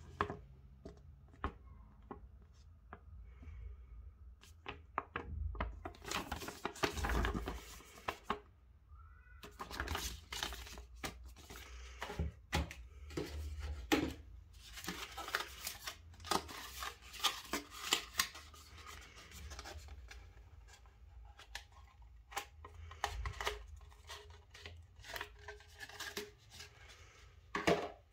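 Hands handling a paper instruction booklet and a cardboard product box: paper rustling and rubbing with many light clicks and taps.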